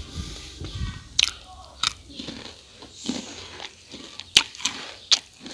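Close-up crunching and chewing of a crispy fried rice cake, with several sharp crackles as the crust breaks between the teeth.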